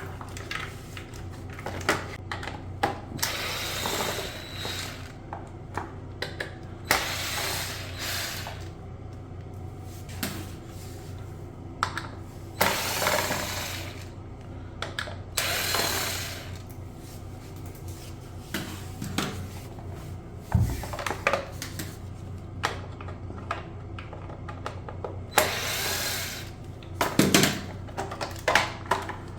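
Small power tool, likely a cordless screwdriver, running in about five short bursts while a bidet is taken apart, with clicks and handling of plastic parts between the bursts, over a steady low hum.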